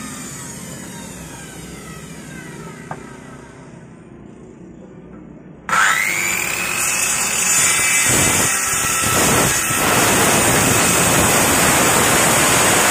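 Handheld electric circular saw spinning down after a cut, its whine falling away over several seconds. About halfway through it starts up again with a sharp rising whine and cuts through a wooden board, loud and steady.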